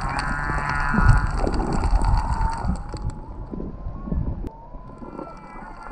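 Humpback whale song heard underwater: long calls rich in overtones that slide up and down, then a long tone slowly rising, with another call near the end. Low rumbling water surges sound beneath them, strongest in the first half.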